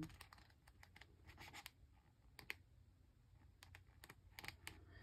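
Faint, irregular paper flicks and rustles as the pages of a paperback colouring book are leafed through.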